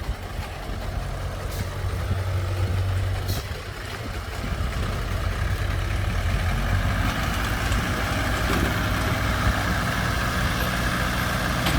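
Vehicle engine running steadily, a low rumble, with two faint clicks in the first few seconds.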